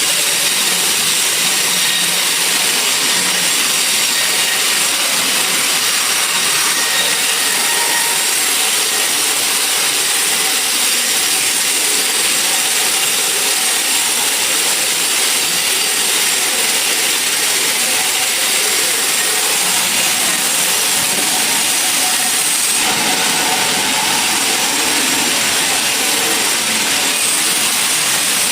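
Sawmill saw running steadily, cutting through wood, a constant loud noise with a slight change in character about 23 seconds in.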